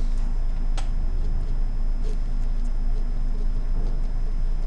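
Felt-tip marker writing on paper: short, faint squeaks and scratches of the pen tip, over a steady low electrical hum.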